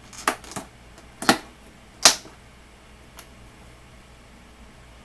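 Clear plastic packaging handled in the hands, giving a few separate sharp crackles, the loudest about two seconds in.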